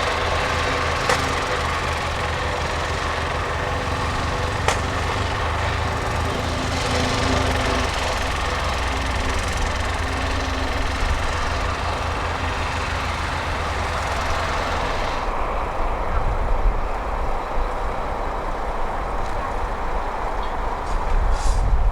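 Heavy diesel construction machinery running steadily, with two sharp metallic clanks in the first five seconds. About fifteen seconds in the higher engine noise drops away, leaving a low rumble with wind buffeting the microphone.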